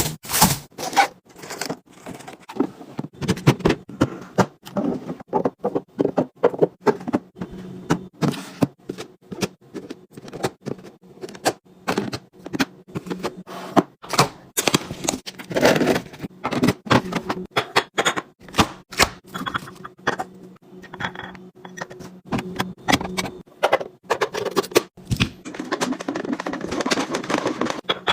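Fridge restocking: containers, jars and bottles being set down and slid onto shelves and into bins, making many quick knocks, clacks and clicks, several a second.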